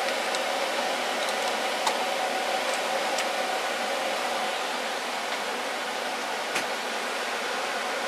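Drill press motor running steadily as the bit cuts a hole in aluminum plate, a hiss with a steady hum, with a few faint ticks.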